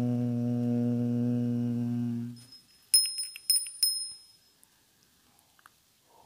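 A chanted "Om" held on one low steady note, which fades out after about two and a half seconds. Then a small bell rings with several quick strikes, and a fresh "Om" begins at the end.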